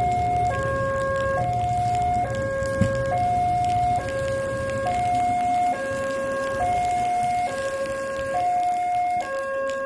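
Electronic level-crossing warning bell sounding two alternating tones, high then low, each held a little under a second, repeating steadily: the signal that a train is approaching and the crossing is closed.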